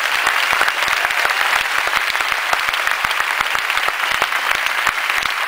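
A large crowd applauding: the steady, dense clatter of many hands clapping at once.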